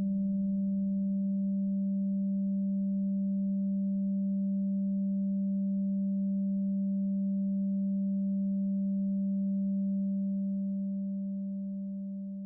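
A steady low drone tone holding a single pitch, with a fainter higher overtone, that fades out smoothly over the last couple of seconds.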